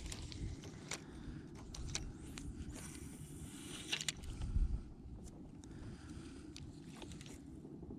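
Wind rumbling on the microphone in a small fishing boat, with scattered light clicks and knocks and a brief hiss about three seconds in.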